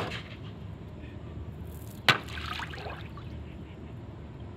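One sharp bang about two seconds in, the report of a Diwali rocket's firecracker charge bursting, over the low lapping and splashing of pond water.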